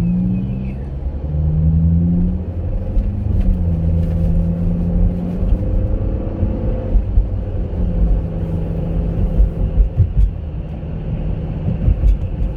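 Engine and road rumble inside a Chevrolet Captiva's cabin while it drives. The engine note rises a few times in the first three seconds, then holds steady at cruise.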